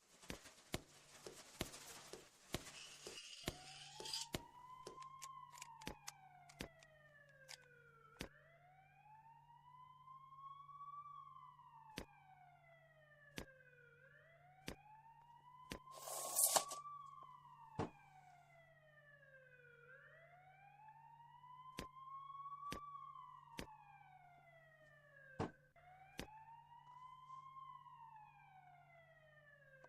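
Ambulance siren in a slow wail, its pitch rising and falling about every six seconds. Sharp clicks and knocks are scattered throughout over a steady low hum, with a burst of hiss at the start and a short noisy burst about halfway through.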